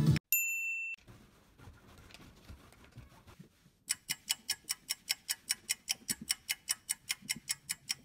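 A single short high electronic beep, then a couple of seconds of faint room tone, then fast even stopwatch-style clock ticking, about four to five ticks a second.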